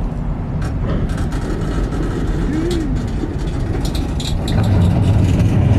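Freight train rolling past close by: a steady low rumble with irregular clacks of the wheels over the rails, growing louder a little past the middle.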